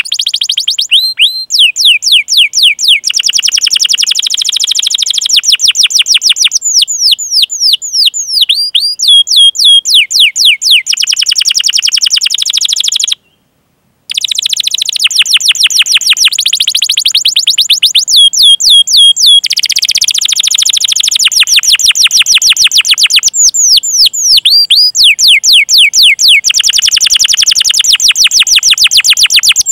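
Domestic canary singing loudly: long rapid rolling trills alternating with runs of sharply falling 'cuit' chirps. The song cuts out for about a second around the middle.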